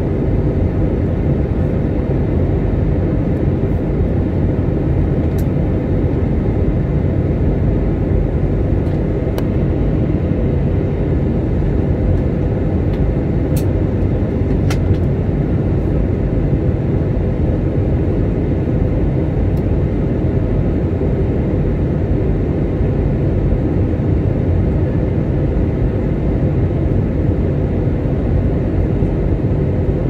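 Steady rumble of an airliner in flight heard from inside the cabin: engine and airflow noise, low and constant, with a couple of faint clicks about halfway through.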